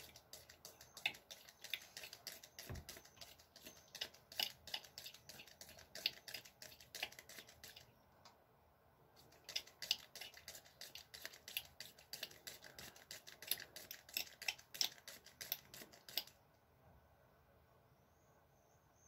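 Ear-irrigation spray bottle pumped in quick pulses, squirting water into an ear canal to flush out impacted wax: a faint, rapid run of clicks and spurts, stopping for about a second midway and then running on again before stopping a few seconds before the end.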